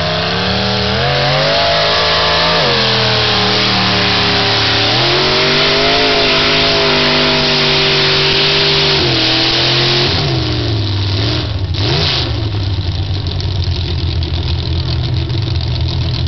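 Mud-bog pickup truck's engine revving hard as it drives into the mud pit. The pitch climbs, dips briefly about three seconds in, and holds high for several seconds. About ten seconds in it falls away unevenly and settles to a lower, steady running as the truck comes nearly to a stop in the mud.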